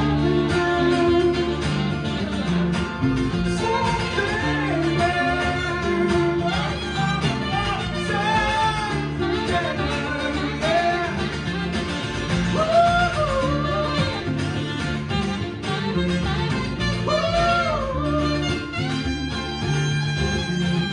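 Live band music in mid-song: guitar over a stepping low bass line, with a lead melody whose notes arch and slide up and down in pitch.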